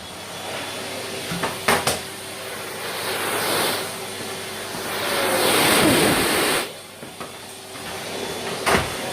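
Vacuum cleaner running: a steady motor hum under a loud rushing hiss of suction that rises and falls and eases off sharply about two-thirds of the way through. Two sharp knocks, one early and one near the end.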